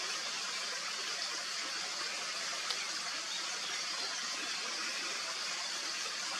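Steady, even hiss of outdoor background noise with no distinct calls or events, except one faint tick about two and a half seconds in.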